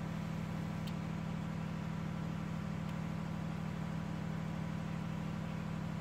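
A running engine drones steadily and evenly, with two faint clicks about one and three seconds in.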